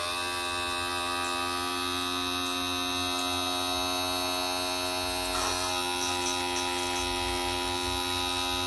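Johnson/Evinrude power trim and tilt pump's electric motor running steadily, driving the hydraulic ram out: a steady whine with a brief rattle about five seconds in. The pump is working again after its bypass valve and poppet valve were fixed and the air bled out.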